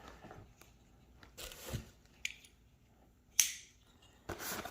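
A few short rustles and clicks of cardboard and plastic packaging being handled as a parts box is opened, the loudest about three and a half seconds in.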